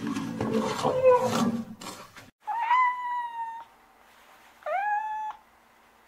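A rough, noisy rhinoceros sound that cuts off abruptly about two seconds in, then a domestic cat meowing twice: a clear call about a second long, then a shorter one a second later, each rising at the start and falling slightly.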